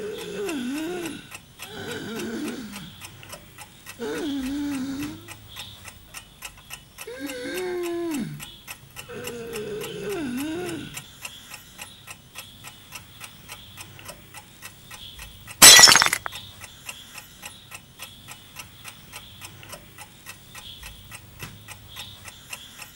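A clock ticking steadily throughout. Over the first half a wavering, voice-like melodic line comes in five short phrases, and about two-thirds of the way through one loud crash of something shattering cuts across the ticking.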